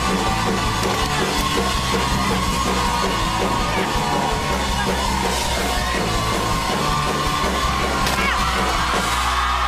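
Loud rock music with yelled vocals and a steady driving beat.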